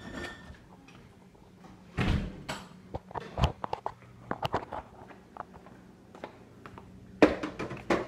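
Scattered knocks, clicks and thuds of things being handled and moved about in a kitchen, with louder thumps about two seconds in, at about three and a half seconds, and just before the end.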